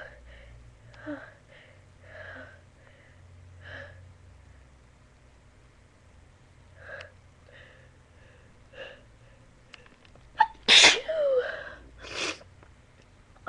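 A person's sneeze breaking through after being held back: several seconds of faint, short catching breaths, then a loud sneeze about eleven seconds in, followed by a second loud burst about a second later.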